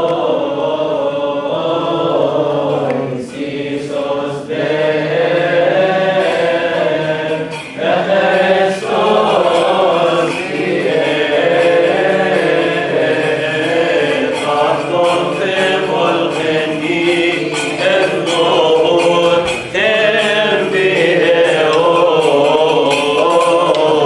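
A group of Coptic Orthodox deacons chanting a liturgical hymn in unison, with brief breaks between phrases and light, regular strikes keeping time.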